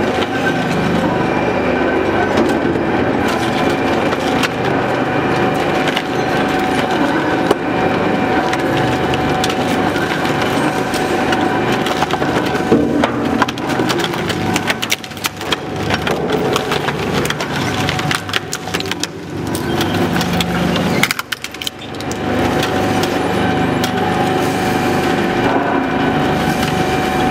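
Double-shaft shredder running, its cutter shafts tearing through waste shoes and clothes with a steady tone under frequent cracking and snapping. The sound dips briefly a few times, most clearly a little past two-thirds through.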